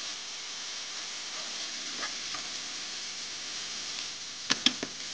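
Onions, peppers, diced ham and tomato paste sizzling steadily as they fry in olive oil in a sauté pan, stirred with a wooden spoon. A few sharp knocks near the end.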